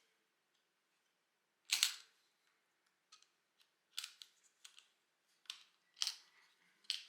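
Clicks and taps from handling a chronograph watch and its box during unboxing: one sharp snap about two seconds in, then a string of lighter clicks and taps.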